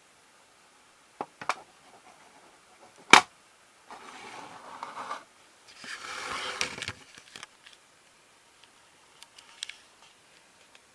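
Handling noise from small hard objects: a few clicks, a sharp knock about three seconds in, then two stretches of scraping or rustling, with a few faint ticks near the end.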